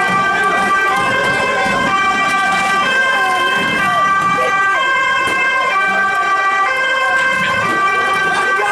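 Two-tone emergency-vehicle siren, alternating between a higher and a lower note about once a second, with crowd voices beneath it.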